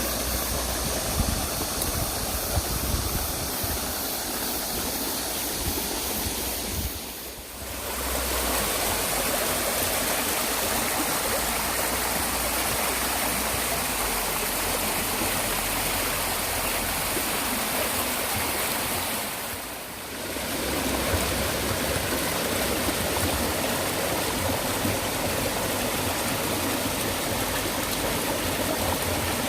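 Mountain stream flowing over rock: a steady rush of water that dips briefly twice, about seven and twenty seconds in.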